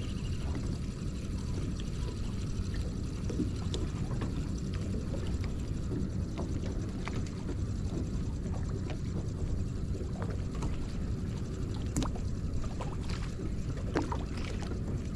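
Steady low noise of a boat on open water, with wind and water on the microphone, dotted with light clicks and knocks, the sharpest about twelve and fourteen seconds in.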